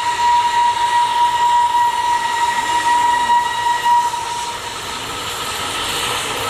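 Steam locomotive whistle blowing one long steady high note, which cuts off about four seconds in.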